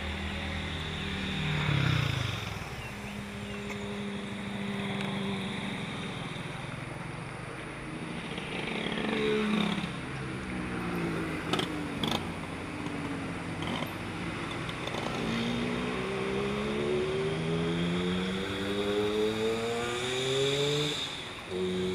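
Motor-vehicle traffic passing, engine notes sliding down and up in pitch as vehicles go by. Through the second half one engine accelerates steadily, its pitch climbing until it falls away shortly before the end. Two short clicks about halfway through.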